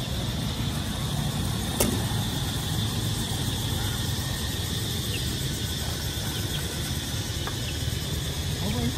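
Steady low rumble of street traffic, with a sharp click about two seconds in.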